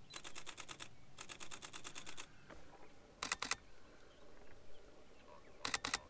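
Olympus OM-D E-M1X mirrorless camera's shutter firing in continuous bursts: two longer runs of rapid clicks, about ten a second, in the first two seconds, then two short bursts.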